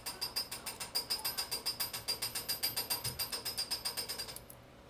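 Ratchet wrench clicking rapidly and evenly, about eight clicks a second with a high metallic ring, stopping suddenly near the end.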